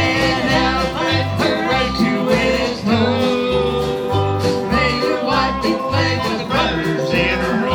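Live country string band playing an instrumental passage: guitar and banjo picking over a bass line that alternates between two notes, with a lead melody line sliding between notes.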